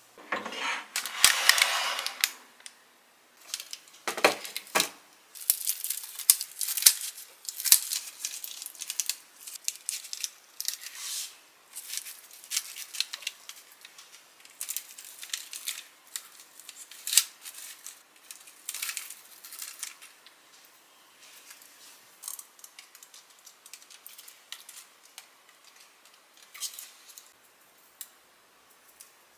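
Food being prepared by hand: scattered light clicks, taps and scratchy rustles of food and baking paper being handled, with a longer rustling stretch about a second in.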